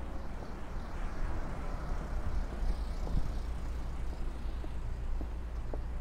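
City street traffic noise: a steady low rumble with an even background hiss, and a few faint taps in the second half.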